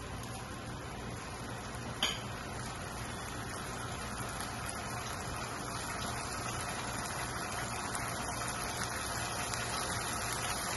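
Crushed tomato cooking in hot oil in a pan, a steady sizzle that grows slightly louder, with one sharp knock about two seconds in.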